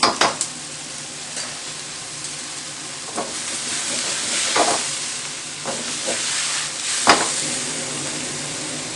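Noodles stir-frying in a wok on a gas burner: a steady sizzle and hiss as the seasoned noodles are worked. A metal ladle clanks against the wok several times, in a quick cluster at the start and loudest about seven seconds in.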